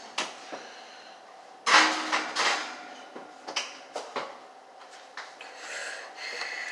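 A string of knocks and clatters from objects being handled, with a louder rattling slide about two seconds in.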